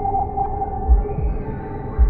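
Suspenseful background music: sustained droning tones with low, heartbeat-like thuds about a second apart.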